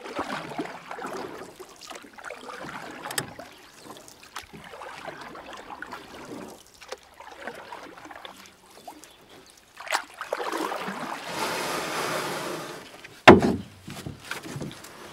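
Canoe on the water: splashing and lapping with scattered knocks, a louder rushing stretch about ten seconds in, then one sharp, loud knock.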